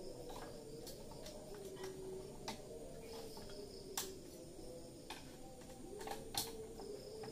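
Scattered light clicks and taps from desktop PC hardware being handled, about a dozen at irregular intervals, with a sharper knock about four seconds in and another near the end.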